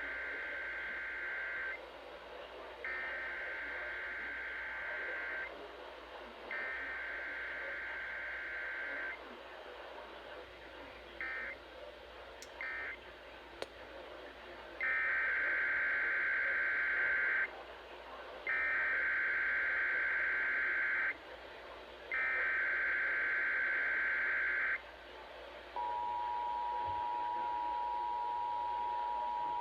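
Emergency Alert System SAME header data bursts, the screeching digital tones heard three times, then two short bursts. Three louder header bursts follow, and then the steady two-tone EAS attention signal begins near the end. The alert log reads this as a required weekly test.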